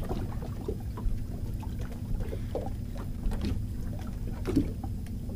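Steady low rumble of wind and water around a small fishing boat at anchor, with a few faint knocks.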